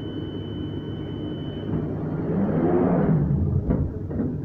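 Doors of a London Underground 2009 Stock train closing: a steady high tone, then a swelling rush as the doors slide shut, ending in a sharp thud about three and a half seconds in and a lighter knock just after.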